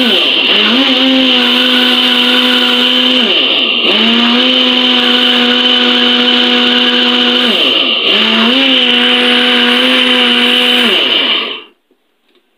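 Electric juicer-blender motor running hard while churning chilled malai (milk cream) with cold water to split out butter. Its whine sags and spins back up about every four seconds, and it is switched off near the end.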